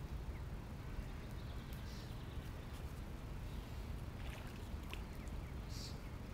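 Steady low outdoor background rumble, with a few faint clicks and a brief high sound near the end.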